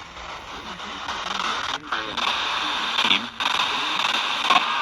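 Radio static and hiss from a broadcast receiver between transmissions, cutting out briefly twice.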